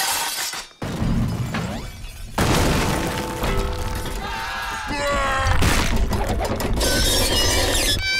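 Cartoon crash effects: stonework shattering and debris flying, with a sudden hit about a second in and another about two and a half seconds in, over music. Sliding pitched sounds run through the middle, and a high cry comes near the end.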